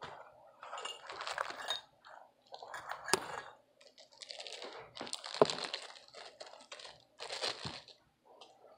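Handling noise: irregular bursts of rustling and scraping, with sharp clinks or knocks about three seconds and five and a half seconds in.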